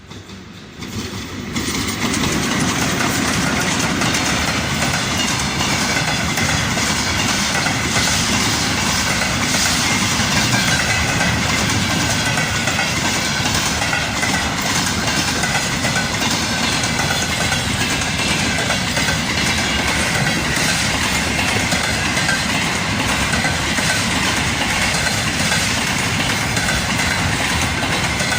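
A train hauled by a VL80S electric locomotive running past close by. Its rumble swells over the first two seconds, then holds steady, with the wheels knocking over the rail joints.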